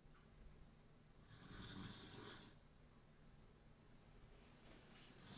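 Faint, slow snoring: one snore lasting about a second and a half, starting just over a second in, with a low rasp under a breathy hiss. The next snore begins building near the end.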